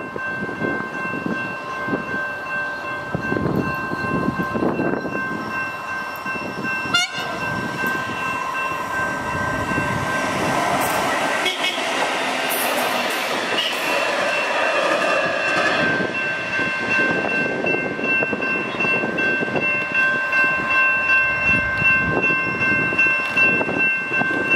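Plasser track-maintenance rail vehicle running along the track, with a rumble of wheels on rail and a steady high multi-note tone sounding throughout. There is a sharp click about seven seconds in, and a rhythmic pulsing near the end.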